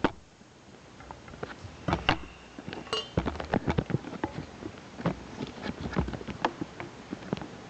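Handling noises as a camera is propped up: irregular light clicks, taps and knocks of objects being moved about.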